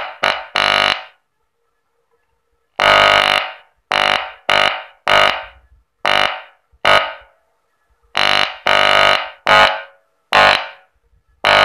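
Loud mains-hum buzz from a woofer driven by a newly built 2SC5200/2SA1943 transistor power amplifier board, coming in about a dozen short bursts that start sharply and tail off as a finger touches and leaves the amplifier's input. The buzz reaching the speaker is the sign that the amplifier is working.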